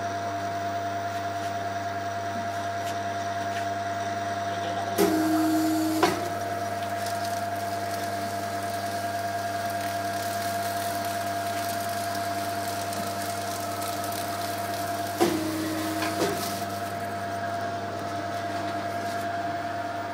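Bucket-printing machine running with a steady hum. Twice, ten seconds apart, a louder, lower hum sounds for about a second, starting and ending with a sharp clack.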